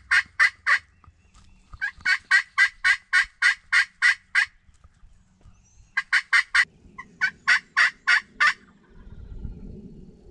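Turkey yelping: loud runs of evenly spaced notes, about four a second, in four series separated by short pauses. A low rustle comes in near the end.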